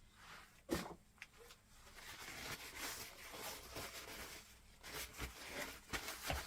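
Faint handling noises of small motorcycle fuel-petcock parts: a few light clicks and knocks, the sharpest about a second in and several more near the end, with soft rustling in between.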